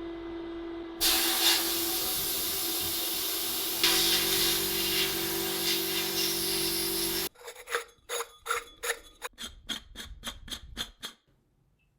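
Workshop tool noise: a loud steady hiss starts about a second in and cuts off suddenly after about six seconds. It is followed by about a dozen quick scraping strokes in a row, each sharp and short, before it goes quiet.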